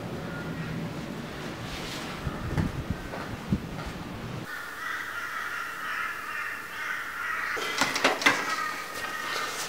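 Crows cawing, loudest in a cluster of harsh calls about eight seconds in; before that, a few soft thuds.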